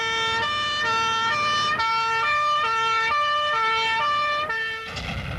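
Two-tone siren of a Leyland Carmichael pump fire engine, alternating between a high and a low note about every half second. It stops near the end, and a low rumble takes over.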